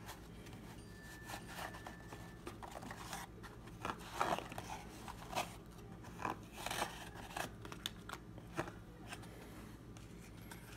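Trading cards and packs being handled in their box: faint, irregular rustles, slides and light taps of card stock and wrappers.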